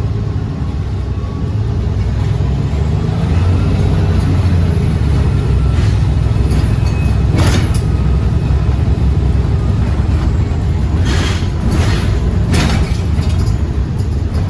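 Iveco Urbanway 18 Hybride articulated bus running with a steady low rumble and a faint whine above it. In the second half come four short hisses of air.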